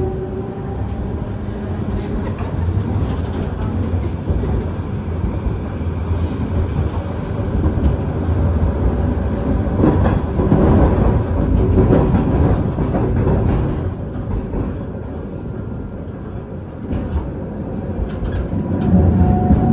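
A St. Charles line streetcar, a 1920s Perley Thompson car, running along its track, heard from aboard: a steady low rumble of wheels on rail with scattered clicks and rattles. It grows louder and busier about halfway through and again near the end.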